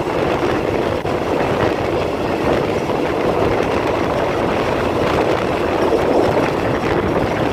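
Diesel railcar running along the track: a steady rumble of engine, wheels and rushing air.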